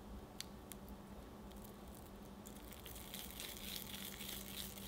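Hands handling sweet white bean paste wrapped around a peeled peach ball, giving a few soft sticky clicks. About halfway through the paste ball is rolled between the palms, making a dense, soft crackling rustle.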